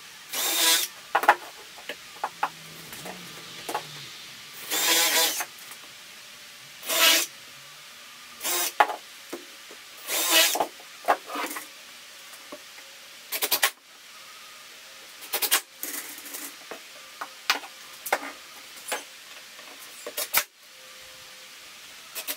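Short scraping strokes on wood, a dozen or so spread unevenly, with sharp clicks and knocks in between, as the edges of a pine bed frame are worked by hand.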